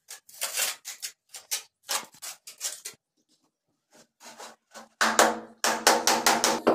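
Short scraping strokes of a trowel spreading cement mortar on the back of a ceramic wall tile. From about five seconds in, a rapid run of palm slaps on the tile as it is pressed to the wall to bed it in the mortar.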